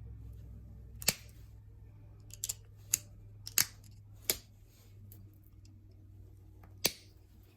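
Sharp, irregular clicks of novaculite flakes snapping off a stone point as it is knapped, about seven in all, some in quick pairs, over a low steady hum.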